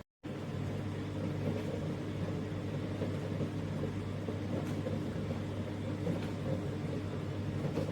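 Countertop dishwasher running: a steady motor hum over a rushing wash noise, after a brief silent gap at the start.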